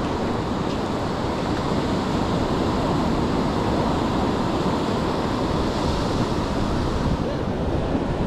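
Surf washing steadily onto the beach, with wind buffeting the microphone.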